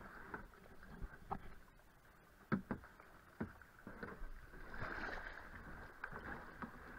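Canoe paddles dipping and splashing in a shallow, fast-flowing river, over the steady rush of the running water. A few short sharp clacks stand out, the loudest about two and a half seconds in, with a fuller splash near five seconds.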